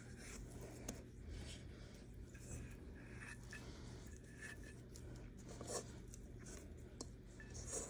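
Faint scraping and rubbing of oiled fingers pulling soft bread dough off the sides of a stainless-steel mixer bowl, over a low steady hum.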